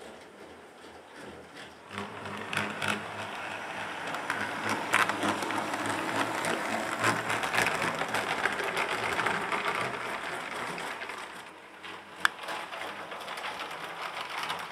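Model train running past on layout track: an electric motor whirring, with a rattle of small clicks from the wheels and cars. It gets much louder about two seconds in, eases off near the end, and there is one sharp click near the end.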